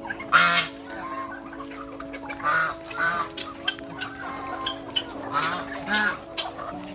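A flock of chickens clucking, with short calls every second or so and louder ones about half a second in and again near the middle and end, over a steady low hum.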